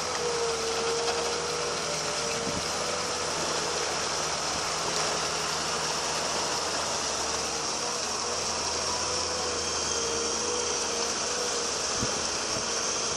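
A 20-ton excavator's engine runs steadily, with a slightly wavering whine, as it powers a hydraulic mud pump. A few faint knocks come through, one early on and one near the end.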